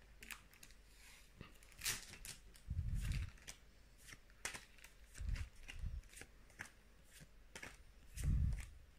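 Pokémon trading cards being flicked through one by one, card edges sliding and snapping against the stack in a run of short clicks and rustles. A few low thumps come through as well, the loudest about three seconds in and near the end.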